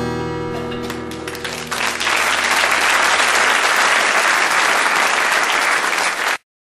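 The final acoustic guitar chord rings out, then an audience applauds from about two seconds in; the applause cuts off suddenly near the end.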